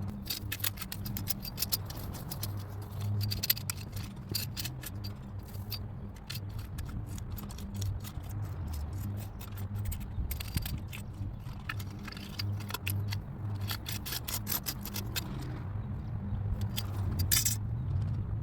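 Avant 640 compact loader's engine running steadily while it works crushed stone, with frequent irregular clinks and rattles of gravel and metal over the engine note.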